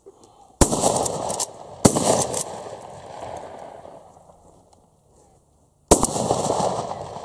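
Three shots from an Uzkon LA887 lever-action 12-gauge shotgun. The first two come just over a second apart and the third about four seconds later. Each shot is followed by a long echoing tail.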